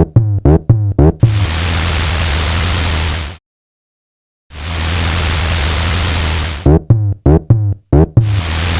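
Cartoon sound effects of a railroad crossing: runs of rapid clanging dings, about three a second, like a level-crossing bell, alternating with two-second bursts of steady rushing noise that start and stop abruptly.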